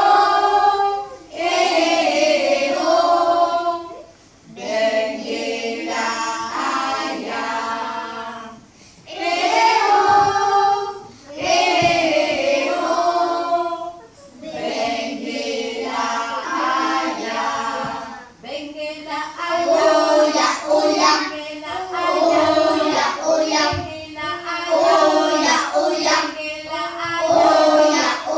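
Young children's choir singing together in sung phrases of a few seconds each, with short breaks between them; for the last third the phrases turn shorter and choppier.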